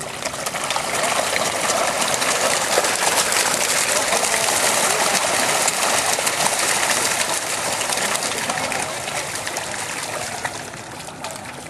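A packed shoal of koi carp thrashing and splashing at the water's surface as they compete for food: a dense churning splash made of many small slaps and ticks, easing off over the last couple of seconds.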